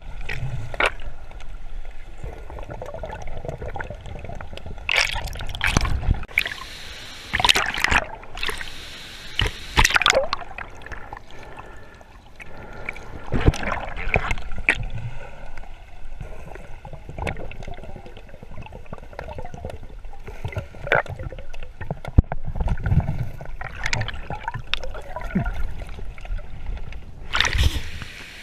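Water sloshing, splashing and gurgling in irregular bursts.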